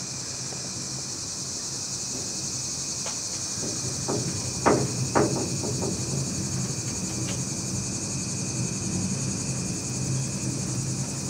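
Steady high-pitched insect chorus over the low, steady hum of a cable-hauled funicular car running on its track, with two sharp clunks about halfway through.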